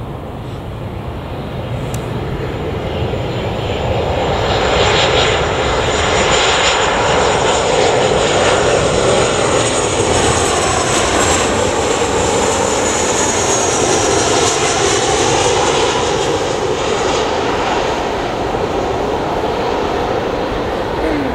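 Boeing 737-800's CFM56-7B turbofan engines on final approach, swelling to a loud rushing jet noise as the airliner flies past. A high whistle glides down in pitch about eleven seconds in, and the noise eases slightly as the jet reaches the runway.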